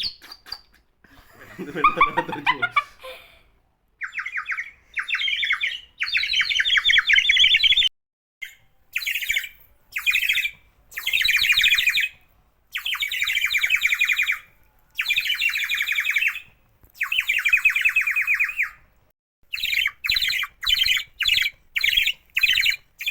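Water-filled clay bird whistle blown in a series of high, fluttering warbles, each one to three seconds long with short breaks between; near the end the blasts come shorter and quicker.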